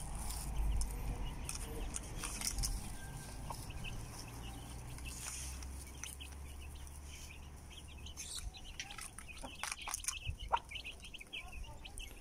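Hen clucking among her chicks, with short chick peeps and sharp clicks thickening toward the end. A low steady rumble runs under the first half.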